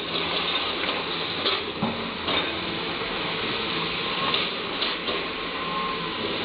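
Caterpillar 320D hydraulic excavator's diesel engine and hydraulics running steadily as the boom swings and lowers the bucket toward loose coal, with a few scattered knocks and clanks.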